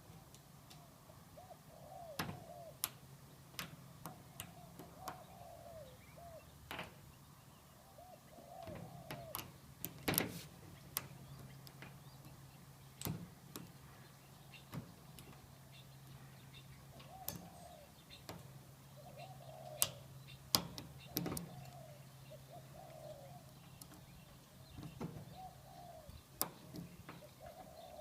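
Small metal clicks and scrapes of lock picks and a tension wrench working the pins of a rusty fake-brass pin-tumbler padlock, scattered and irregular. A bird calls repeatedly in the background with short wavering calls in runs.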